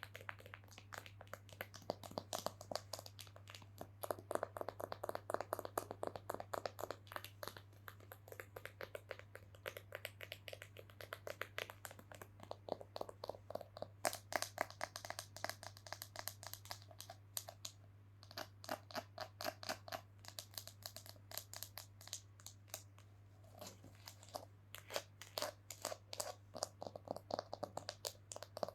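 Rapid ASMR tapping and knocking on an object, many quick clicks a second with a few short lulls, over a steady low hum.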